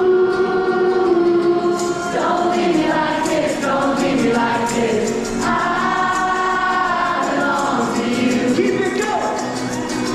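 Live concert music: voices singing long held notes over the band.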